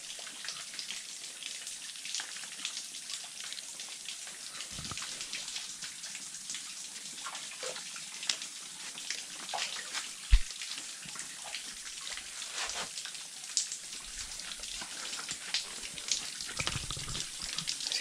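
Spring water trickling and dripping over rocks, a steady splashing hiss with many small drips like rain. Two dull knocks, about five and ten seconds in.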